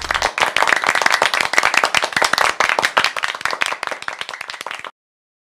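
Applause sound effect: many hands clapping in a dense patter, cutting off suddenly about five seconds in.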